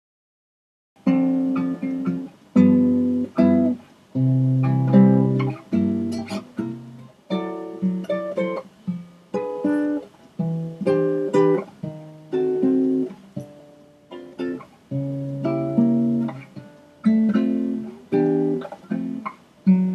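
Nylon-string classical guitar fingerpicked, single plucked notes and chords, starting about a second in, recorded through a Blue Spark Digital condenser microphone set to high sensitivity.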